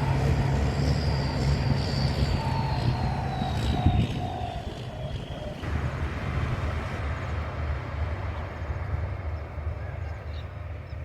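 KiHa 183 diesel railcar train running on the rails with a steady low engine drone and a high, slowly falling whine; about five and a half seconds in the whine and much of the rushing noise cut off, leaving a quieter run.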